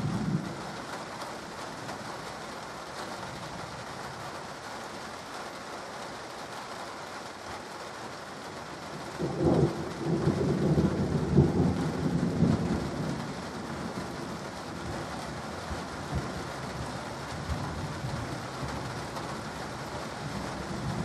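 Steady rain falling, with a long rolling rumble of thunder that starts about nine seconds in, stays loud for several seconds and then fades.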